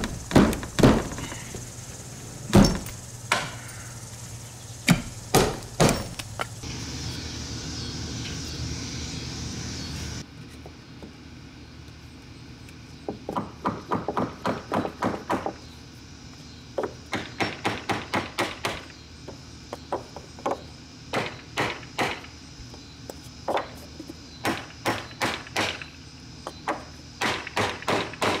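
Claw hammer blows on wooden wall framing: a few separate heavy strikes in the first ten seconds, knocking down old nails that won't come out, then runs of quicker, lighter taps, about three a second, on a block of wood.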